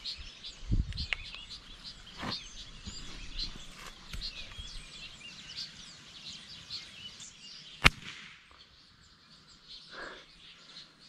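Birds chirping, then about eight seconds in a single sharp crack: a .22 rifle shot.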